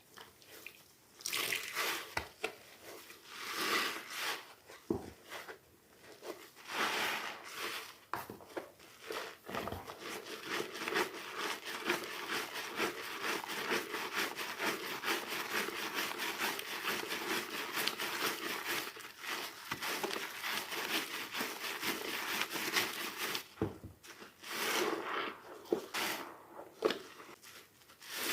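Water-soaked soap squeezed and kneaded by hand, giving wet squishing and a dense, fine crackling as the sodden soap is pressed through the fingers. It comes as separate squishes at first, then runs as continuous crackling for over ten seconds before breaking back into single squelches near the end.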